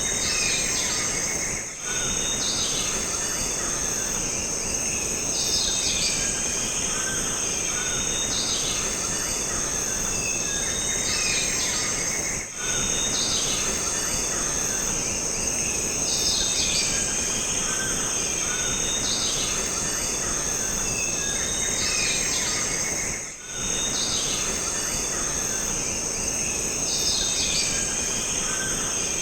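Jungle ambience: a steady, high-pitched insect drone, with short bird calls repeating every two to three seconds over a constant background hiss.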